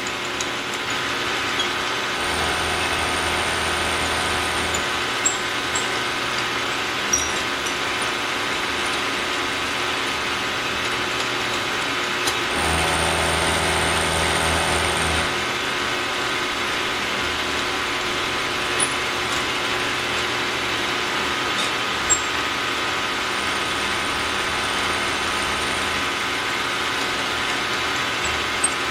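Milling machine spindle running while an end mill cuts hex flats on a steel stud, a steady mechanical whine with a few sharp ticks. Twice, for a few seconds, a low hum joins and the sound grows louder.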